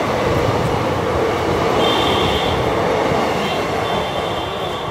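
Express train passenger coaches running through a station at speed: a loud, steady rumble of wheels on rail, with brief high-pitched wheel squeals about two seconds in and again near the end. The last coach goes past and the noise begins to fade.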